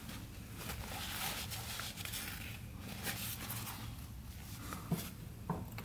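Quiet room tone: a low steady hum with a few faint rustles.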